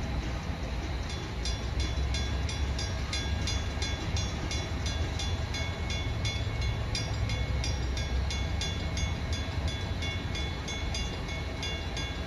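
Railroad grade-crossing warning bell starts about a second in and rings in a fast, even, steady rhythm, signalling that a train is approaching, over a low rumble.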